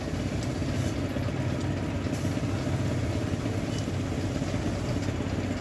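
An engine running steadily at idle, a continuous low hum, with a few faint clicks.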